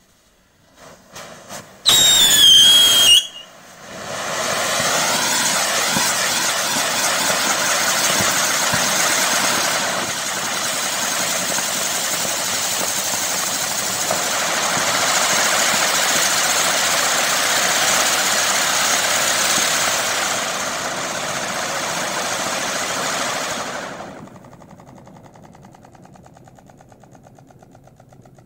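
Catherine wheel firework burning: a few sputters of the fuse, then a loud shrill wavering whistle for about a second, then a steady loud hiss of the spinning wheel for about twenty seconds, dipping and rising as stages change. The hiss cuts off suddenly near the end as the wheel burns out.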